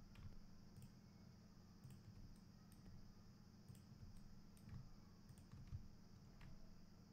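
Faint, irregularly spaced computer mouse clicks, a dozen or so, over a low steady hum.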